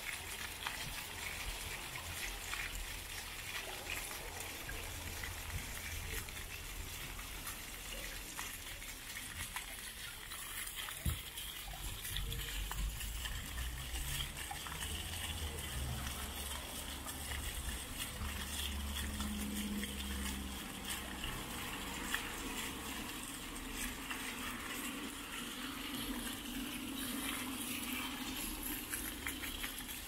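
Several small ground-level fountain jets splashing steadily, their water falling back onto wet paving stones.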